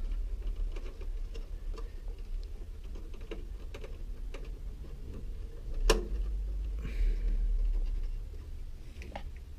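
Plastic wire-harness connectors being handled and pushed onto the pin headers of a washer's control board: scattered light clicks and rustling, with one sharper snap about six seconds in as a connector seats.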